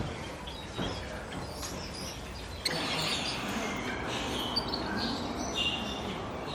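Several birds calling and chirping, with short high calls overlapping. The calls get louder and busier about two and a half seconds in. A short knock opens the sound.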